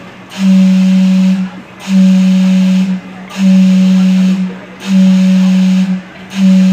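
Gastown steam clock's steam whistle blowing a series of blasts on one low note, each about a second long with short breaks between, five starting here.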